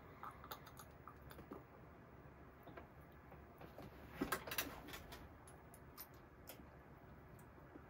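Faint scattered clicks and small ticks, with a short cluster of louder ones about four seconds in.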